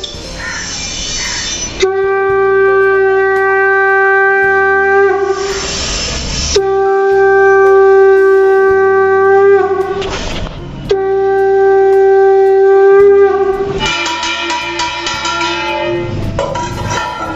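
A conch shell (shankha) blown in three long, steady blasts of a few seconds each, with short breaths between them, as is done at the Hindu evening puja. Near the end a different, rapidly pulsing sound follows.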